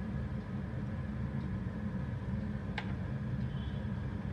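Steady low background hum, with one faint click a little under three seconds in.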